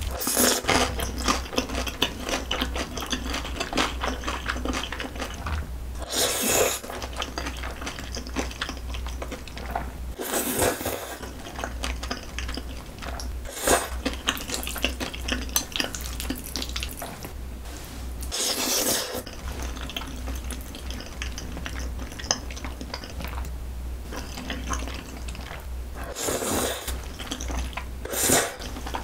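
Close-miked eating sounds: ramen and glass noodles in a thick, creamy spicy sauce slurped up in about seven loud pulls, with wet chewing and smacking between them and occasional clicks of chopsticks against the bowl.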